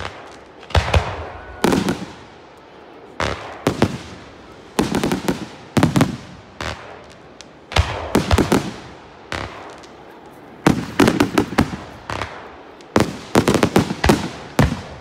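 Aerial fireworks bursting: a barrage of loud, sharp bangs every second or two, often two to four in quick succession, each trailing off in an echo.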